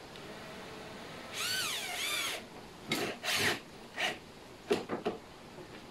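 Cordless drill driving screws into a metal drawer-slide runner. The motor whine rises and falls in pitch for about a second, then several short, noisy bursts follow as the screws are run in.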